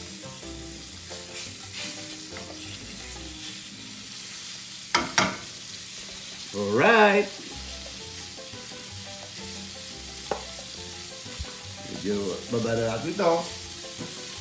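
Food sizzling steadily as it fries in a pan. Two sharp knocks come about five seconds in. A short, wavering, voice-like pitched cry, the loudest sound here, comes around seven seconds, and a few more come near the end.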